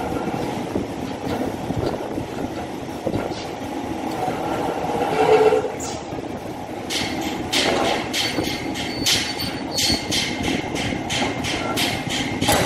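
Mechanical sheet-metal guillotine shear running with a steady rumble. From about halfway through, a regular series of sharp metallic clicks comes at about three a second.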